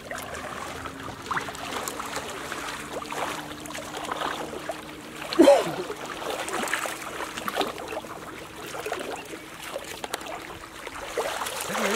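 Shallow muddy water sloshing and splashing as several people wade and grope through it by hand, with small irregular splashes and drips throughout. One louder burst comes about five and a half seconds in.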